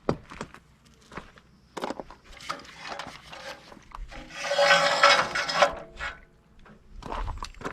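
Handling noises: a string of clicks and light knocks, with a louder rustle or scrape about four seconds in that lasts over a second.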